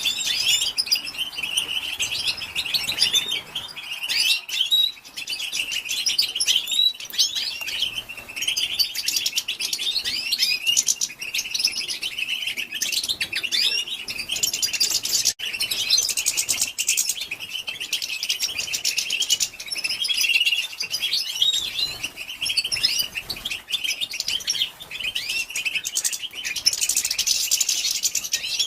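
Female European goldfinches chattering: a dense, unbroken stream of rapid, high, twittering chirps and short trills. This is the 'batbata' call that keepers play to get caged male goldfinches to sing.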